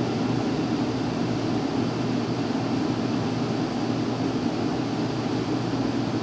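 Forced-air furnace running: a steady low rush of blower and airflow with a hum, and no knocks or booms.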